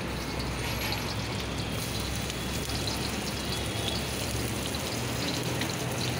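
Chopped garlic sizzling in hot oil in a large wok, a steady frying hiss with a low hum underneath.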